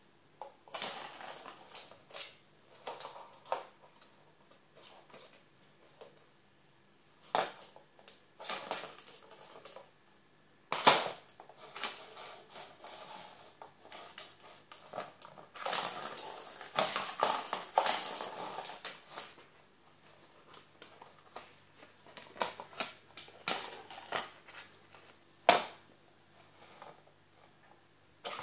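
Kittens pawing at a plastic circular track-ball cat toy: irregular plastic clacks and rattling. There is one sharp loud clack about eleven seconds in and a longer stretch of rattling in the middle.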